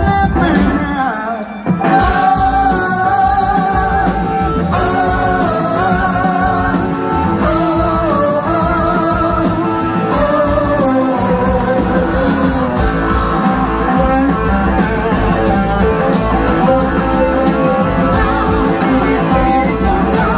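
A live rock and blues band playing, with electric guitar and singing over drums and bass. The music drops out briefly about a second in and comes back in, followed by long, wavering held notes.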